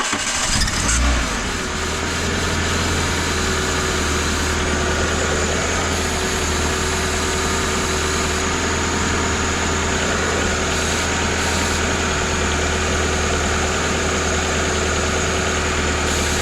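Renault Clio 182's 2.0-litre four-cylinder engine firing up and settling within about two seconds into a steady idle, with a thin steady whine over it. This is the start-up squeal being chased, which is still there with brake cleaner on the crank pulley, so it is not the belt slipping.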